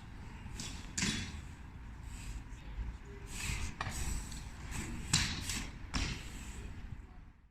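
BMX bike being ridden on a street spot: a steady low rumble of rolling with a few sharp knocks and thumps from the bike hitting the ground.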